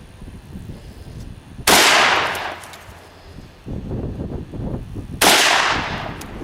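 Two rifle shots about three and a half seconds apart, each a sharp crack that trails off over about a second.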